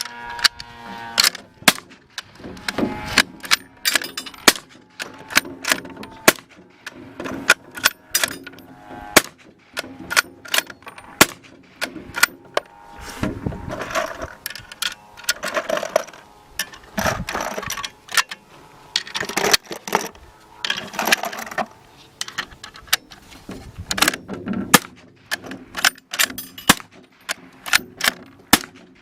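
Gunshots from a firearm fitted with a suppressor, fired many times at irregular intervals. They are often several sharp cracks within a second, with pauses between groups.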